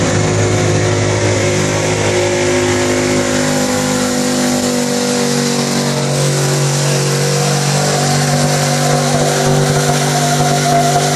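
Pickup truck engine running hard at high revs under load while dragging a pulling sled on wet pavement. Its note steps up about five seconds in and is held there.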